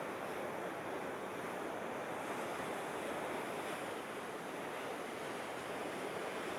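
Steady rushing noise of wind and water, without a break or a change in level.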